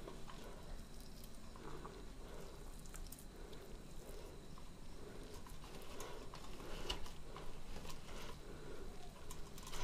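A hand squashing boiled Ceylon olives (jolpai) in a steel bowl: faint, repeated soft squelches about twice a second, with a few light clicks against the steel.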